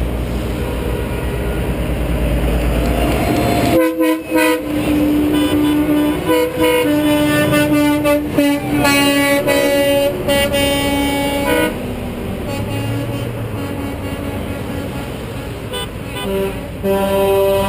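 Semi-truck air horns blowing as tractor-trailers pass: a few short toots about four seconds in, then a long blast that dips in pitch as the truck goes by and stops around twelve seconds. Another truck's horn starts near the end, over the rumble of passing engines and tyres.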